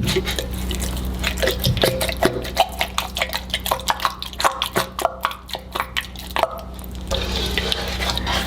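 Wet clay sediment and water at the bottom of a cut-open glass-lined steel well pressure tank being stirred and dug through, giving a quick, irregular run of small wet clicks, squelches and drips over a steady low hum.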